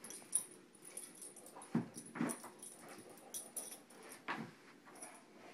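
English mastiff puppy making three short vocal sounds while humping a plush rocking horse, with a few light knocks in between.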